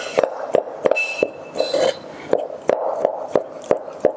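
Chef's knife chopping slices of Emmental cheese into thin strips, the blade knocking on a plastic cutting board in a steady rhythm of about three chops a second.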